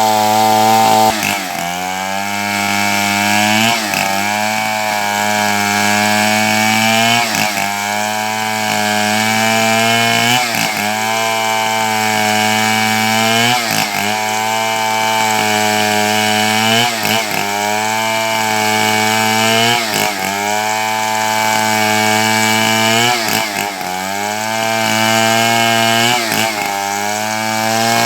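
Two-stroke chainsaw running under load while cutting wood, its engine note sagging and recovering roughly every three seconds.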